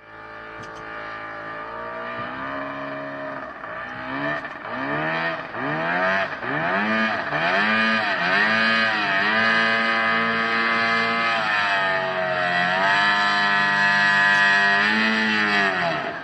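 Yamaha C40 two-stroke outboard fitted with tuned expansion-chamber exhausts, running hard on a boat. Its pitch swoops up and down again and again for the first half while it grows louder, then holds high and steady with one brief dip.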